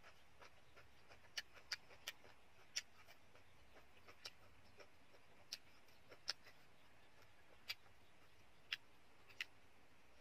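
Near silence broken by about ten short, sharp clicks at irregular intervals, from a person eating a salad with wooden chopsticks.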